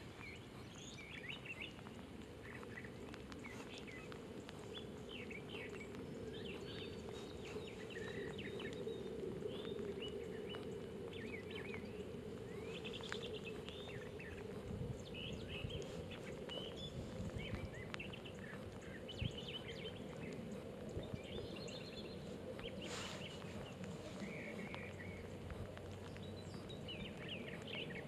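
Faint lakeside ambience: many small birds chirping and calling in short, scattered notes over a steady low background hiss.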